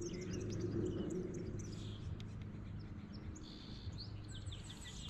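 Small birds chirping: a run of short, high chirps, busiest near the end, over a steady low hum.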